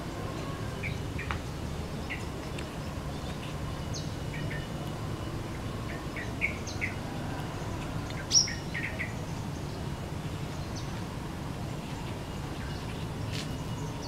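Yellow-vented bulbul giving short, scattered chirping notes, with one louder, sharp, falling call about eight seconds in.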